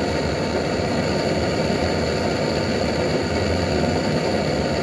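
Butane blowtorch burning with a steady, loud noise, its flame heating an aluminium tube.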